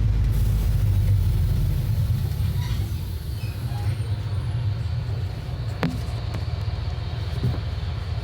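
Mercedes-Benz OF-1721 Bluetec 6 bus's four-cylinder diesel engine running with a steady low rumble, easing off a little about two to three seconds in. Two short clicks sound near the end.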